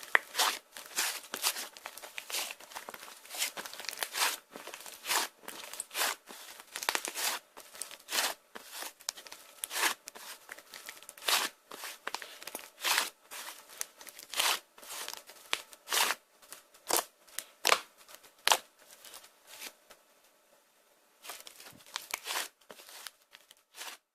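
Light-green pearl slime being squished and stretched by hand, giving short crackling, popping bursts about once or twice a second. There is a short pause near the end.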